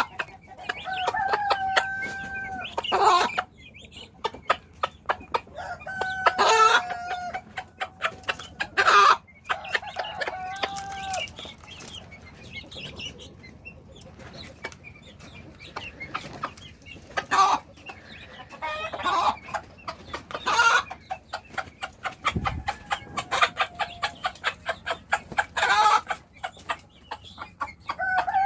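Hen clucking in rapid runs of short clucks, the food call a mother hen uses to bring her chicks to eat, with several louder squawks and a few drawn-out calls held on one pitch.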